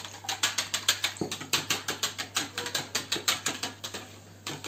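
Wire whisk beating eggs and water in a plastic bowl: a rapid, even clicking of the wire loops against the bowl, stopping briefly near the end and then starting again.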